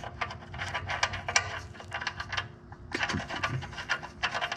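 Rapid light clicks and rattles of small metal parts and tools being handled, with a short pause about two and a half seconds in, over a faint steady hum.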